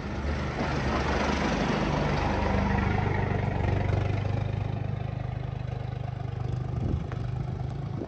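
Engine of a footpath snow-clearing vehicle running steadily close by, with a hiss over it. It grows louder over the first couple of seconds and eases off toward the end.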